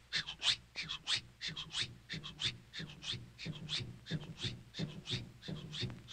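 Cartoon moose sniffing rapidly and rhythmically, about three or four short sniffs a second, nose to the ground on a scent trail.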